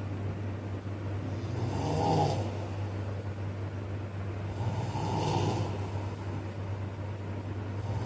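A man snoring in slow, regular breaths, two snores about three seconds apart, each about a second long and rasping, with a third starting near the end, over a steady low hum.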